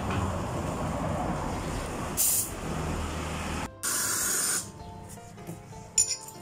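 Espresso machine steam wand hissing: a steady hiss for several seconds, a short break, then a sharper blast of steam of under a second that cuts off suddenly.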